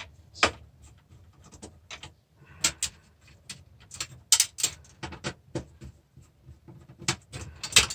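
Irregular clicks and knocks of hand work inside an old DVD player as a board and its connectors are pulled off.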